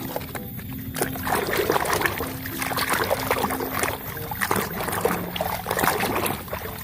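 Water splashing and trickling, with small irregular knocks, as a muddy toy vehicle is washed.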